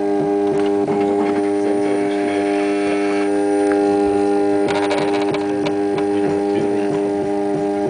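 Latex 3D printer's machinery running: a steady, unchanging multi-tone hum with a regular light ticking about three times a second, and a brief rattle about five seconds in.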